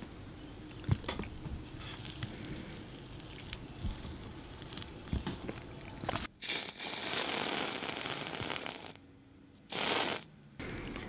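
Soft, sticky mouth sounds and small clicks of chocolate cake being eaten from a fork. Then an aerosol whipped-cream can hisses as cream is sprayed onto a forkful of cake, in one long burst of about two seconds and a shorter one near the end.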